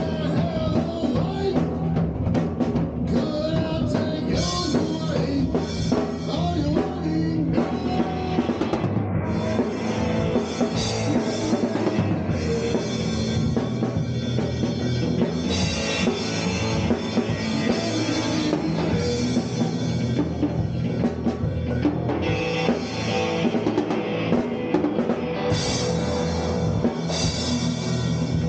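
Rock band playing live: a drum kit and electric guitars run through effects pedals, playing steadily without a break.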